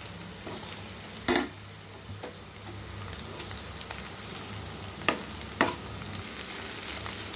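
Cauliflower and onion fry sizzling gently in a nonstick pan while a steel spoon stirs it. The spoon gives a sharp clack against the pan about a second in and twice more about five seconds in.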